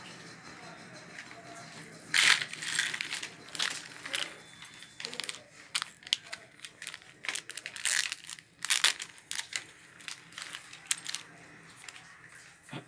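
Packaging wrapper crinkling and rustling in irregular bursts as a gold-plated chain is unwrapped by hand, with light clinks of the chain.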